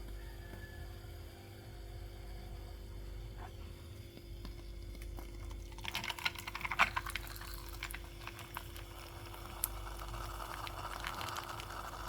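Moka pot gurgling and sputtering as the coffee is forced up into the top chamber: about halfway in comes a burst of crackling spurts, then a softer hissing gurgle that builds toward the end. A steady hum runs underneath.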